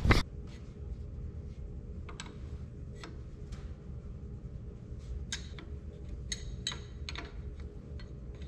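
Irregular light metallic clicks and ticks of a wrench working on a diesel engine's injector hold-down bolts and fuel line fittings, over a low steady background hum.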